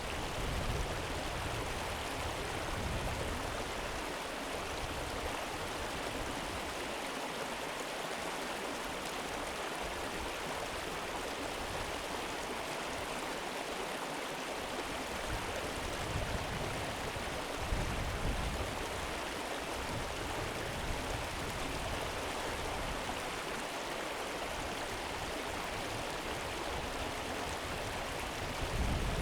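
Slow river flowing: a steady, even rush of moving water, with low rumbles coming and going.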